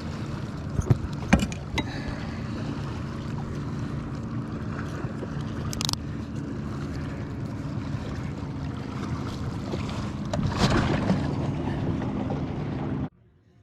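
A small boat motor hums steadily, with a few knocks and clatters over it. It cuts off suddenly near the end.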